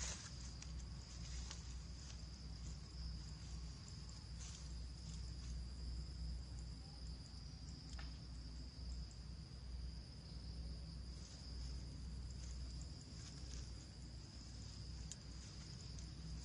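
Insects chirring in a steady, unbroken high-pitched drone, with a low rumble underneath.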